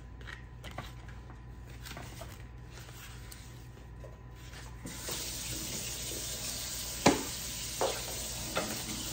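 Kitchen faucet turned on about halfway through, water running into the sink with a steady hiss. About two seconds later there is a sharp knock, with a couple of lighter knocks after it. Before the water, only a few faint clicks of handling at the counter.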